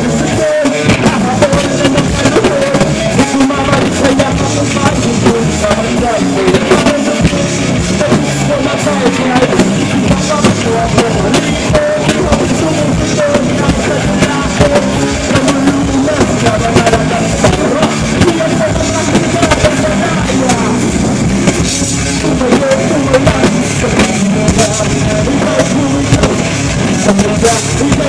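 Live rock band playing loud: electric guitars, bass guitar and a drum kit, with the vocalist's voice over them, recorded from inside the crowd.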